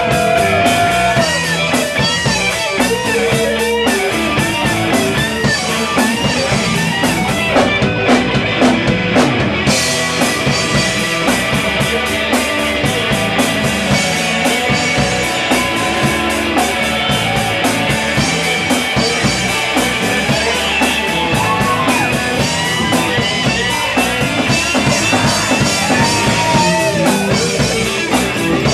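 Live rock band playing, with an electric guitar solo full of string bends over drums.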